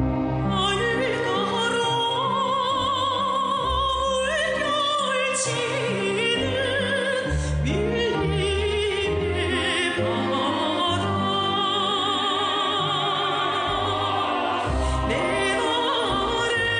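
Music: a sung melody with long held notes and strong vibrato over an instrumental accompaniment.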